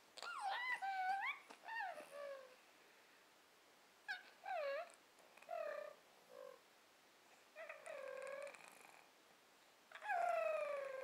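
A pet cat making a string of about seven odd meowing calls, short and gliding in pitch, with a long call falling in pitch near the end.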